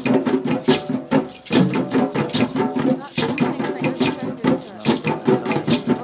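Djembe drumming: a fast, steady rhythm of hand strokes on the drum.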